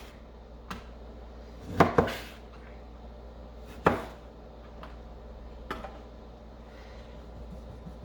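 Kitchen knife cutting through lemons into wedges and knocking on a cutting board: a few sharp knocks a second or two apart, a double one about two seconds in and another about four seconds in.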